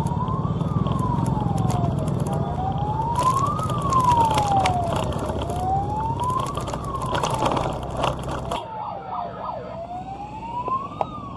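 A wail siren rising and falling slowly, about one full sweep every three seconds, over a low vehicle engine rumble with crackling. The rumble cuts off suddenly about two-thirds of the way in, and the siren carries on.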